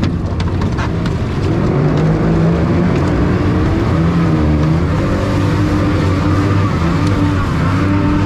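Outboard motors on racing aluminium dinghies revving hard, the pitch rising and falling, and getting louder about two seconds in as the boats get under way.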